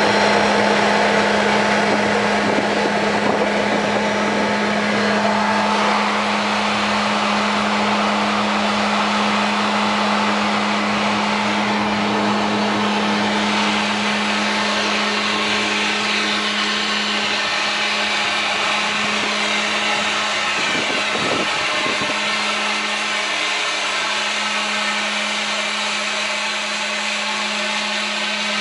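80 HP natural-gas-fired Cleaver-Brooks firetube steam boiler running on test, its burner blower and firing making a loud, steady hum over a broad rush.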